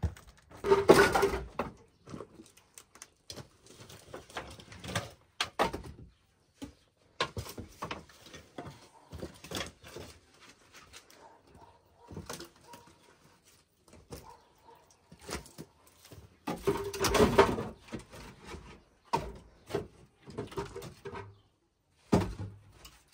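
Firewood being handled and stacked into a slatted wooden pallet woodshed: logs and sticks knocking and clattering against each other and the boards in irregular knocks, louder clatters about a second in and again about three quarters of the way through.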